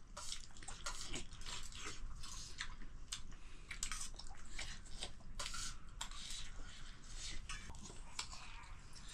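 Water splashing and trickling, with irregular small clicks and knocks.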